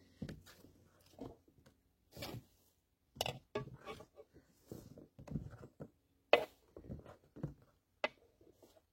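Kitchen knife cutting vegetables on a cutting board: irregular soft knocks and clicks with short pauses between them.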